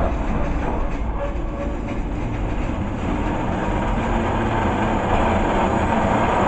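Freight train's loaded container wagons rolling past close by, a steady rumble and rattle of steel wheels on rails.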